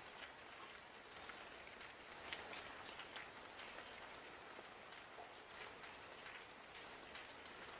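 Faint, steady rain, with many separate drops ticking through it.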